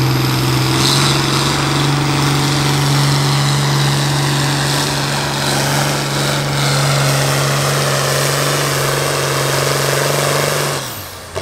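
John Deere 4055's six-cylinder turbo-diesel engine under full load, pulling a weight sled with its note held steady. Near the end the engine drops off sharply as it is throttled back.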